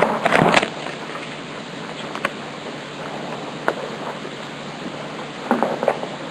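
Trading-card pack wrapper crinkling and tearing for about half a second at the start, then a steady background hiss with a few faint clicks of cards being handled. A short rustle of cards being sorted comes near the end.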